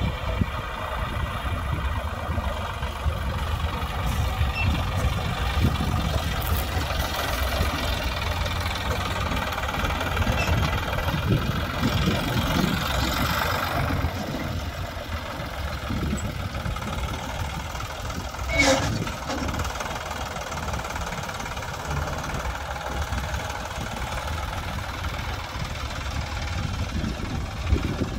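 Sonalika farm tractor's diesel engine running steadily as it pulls a trailer across loose sand, with a constant low throb. A single short sharp clack comes about two-thirds of the way through.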